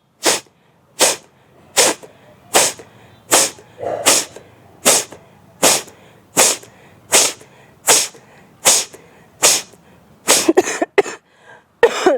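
A woman's short, forceful exhalations through the nose, about fifteen in a steady rhythm, one every three-quarters of a second, a little quicker and less even near the end. The puffs blow leftover saltwater out of the nose and sinuses after a nasal rinse.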